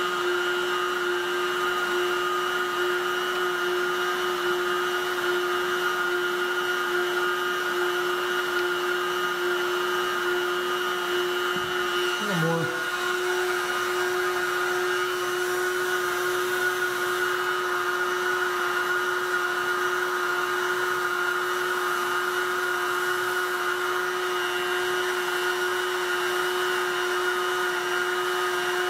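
Handheld hot-air heat gun running steadily, its fan giving a continuous even whine with a few steady tones while it heats and softens plastic.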